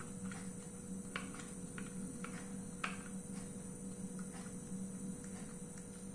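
Soft, irregular light clicks and scrapes of a hand-held chakli press being worked as dough is pressed out into spirals, over a steady low hum.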